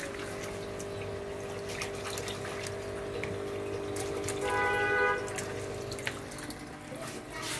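Water splashing and dripping as hands rinse seedling roots in a bowl of water, with scattered small splashes over a steady low hum. A brief higher-pitched tone sounds about halfway through.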